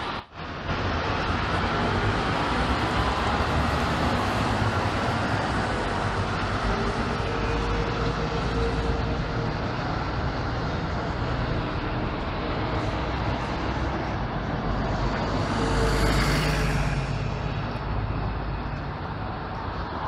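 City buses and street traffic driving past: steady engine and tyre noise with a low rumble. The sound briefly drops out just after the start, and swells as a vehicle passes close about sixteen seconds in.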